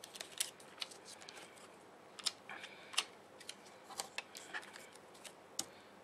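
Paper stickers and a planner page being handled: a sticker peeled off the page, with scattered light clicks, taps and paper rustles, and a short crackly rustle about two and a half seconds in.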